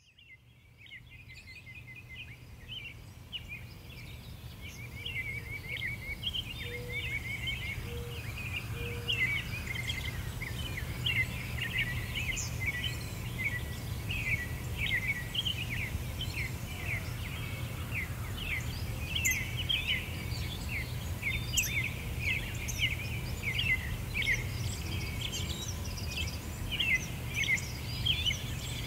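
A dense chorus of birds chirping, many short quick calls overlapping, over a steady low background rumble. It fades in from silence over the first few seconds.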